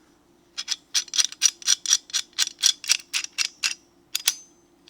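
Facom 501A locking pliers being worked by hand: a fast, even run of metallic clicks, about five a second, for about three seconds, then two more clicks with a brief ring near the end.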